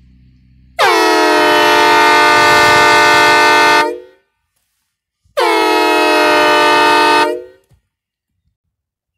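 Homemade five-chime train horn, tuned to sound like a Nathan horn, blowing two blasts: a long one of about three seconds, then a shorter one of about two. At the start of each blast the chord's notes slide down briefly before holding steady.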